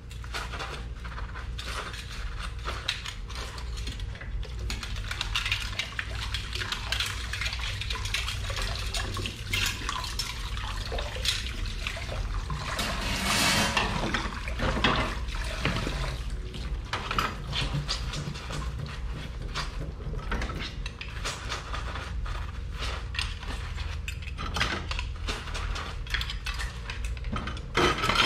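Dishes being washed by hand under a running kitchen tap: water pouring into the sink with frequent clinks and knocks of plates and cutlery, and a brief louder rush of water about halfway through.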